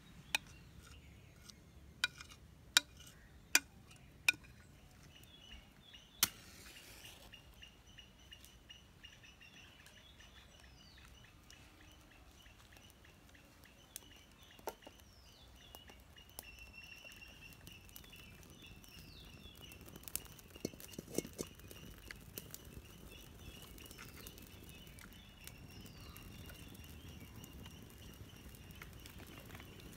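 Birds chirping outdoors, a short descending call repeated every couple of seconds over a faint steady high trill. A handful of sharp knocks in the first six seconds and a few more about two-thirds of the way through are the loudest sounds.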